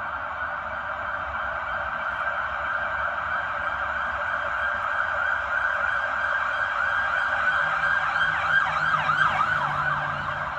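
Fire-rescue emergency vehicle siren, approaching and growing louder. About eight seconds in it switches to rapid up-and-down sweeps.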